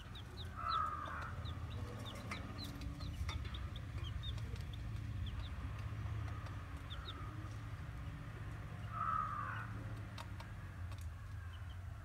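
Baby chicks peeping: many short, high, falling chirps, with two louder, lower calls about a second in and again about nine seconds in, over a steady low hum.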